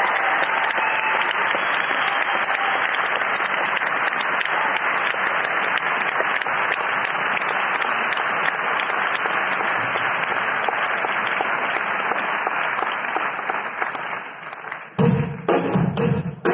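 Concert audience applauding steadily, the clapping fading out after about fourteen seconds. Near the end, the band comes in with sharp drum hits and pitched instrument notes.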